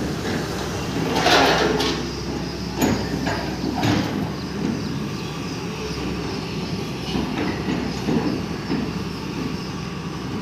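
Hydraulic excavator's diesel engine running with a steady low rumble. A louder clattering burst comes about a second and a half in, and a few sharp knocks follow.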